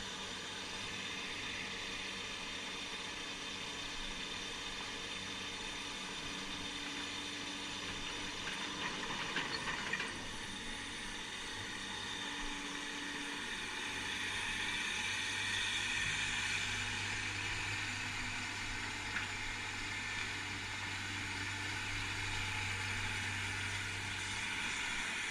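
Heavy-equipment diesel engine running steadily with a low hum. A few short knocks come about nine to ten seconds in.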